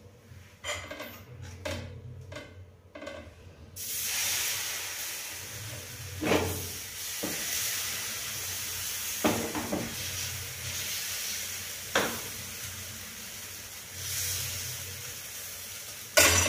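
Dosa batter sizzling with a steady hiss on a hot iron tawa, starting about four seconds in, after a few knocks. Several more sharp knocks come over the sizzle.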